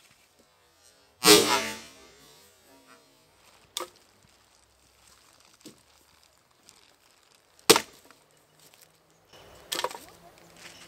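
Hultafors axe chopping birch branches: four sharp wooden strikes with pauses between them. The first about a second in is a longer cracking blow.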